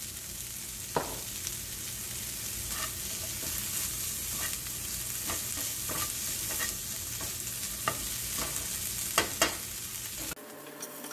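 Onions, kidney beans and corn sizzling in a frying pan while a spatula stirs them, with short scrapes and taps of the spatula on the pan every second or so. The sizzle cuts off suddenly near the end.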